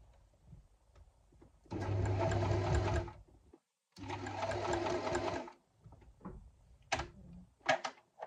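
Electric sewing machine stitching in two short runs of about a second and a half each: a steady motor hum with rapid needle chatter. A few sharp clicks follow near the end.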